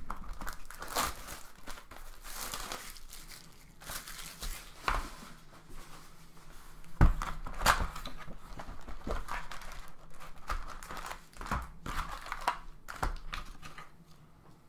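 Plastic wrapping and trading-card pack wrappers being crinkled and torn open, with irregular crackling and a couple of sharp snaps about seven seconds in.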